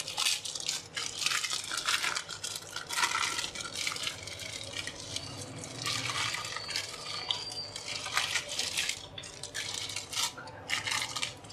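Butter paper rustling and crinkling as it is handled and peeled around a freshly unmolded cake: a run of irregular, quick scratchy strokes with a brief lull near the end.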